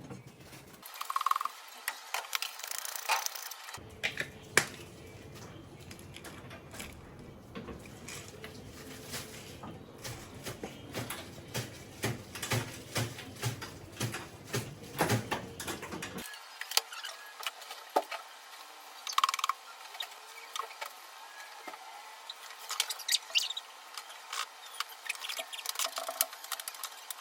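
Kitchen work with cookware and utensils: a string of irregular light knocks and clicks.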